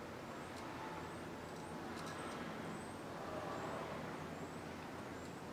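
Quiet room tone: a faint, steady background noise, with faint, short, high chirps about once a second.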